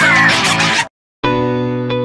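Instrumental rock backing music that breaks off abruptly about a second in, drops out for a moment, then comes back with a held chord and a few sharp hits.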